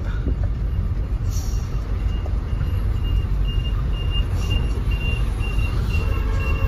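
Truck engine and cab rumble as the lorry creeps forward in slow traffic, heard from inside the cab. From about two and a half seconds in, a high electronic beep repeats about twice a second.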